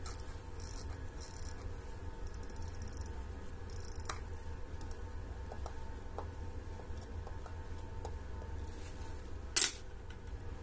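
Faint small metallic clicks and scrapes of a fine screwdriver and tweezers working the screws of an Orient 46941 automatic watch movement, over a steady low hum. A single sharp, louder clack comes near the end.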